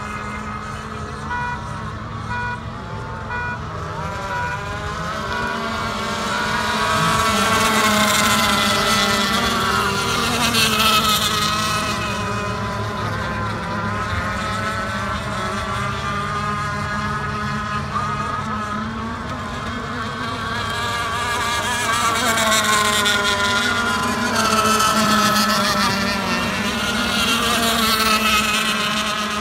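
Gas-engined radio-controlled thunderboat running laps at speed: a buzzing high-revving engine note that swells and glides in pitch as the boat passes. It is loudest twice, about a third of the way in and again over the last several seconds.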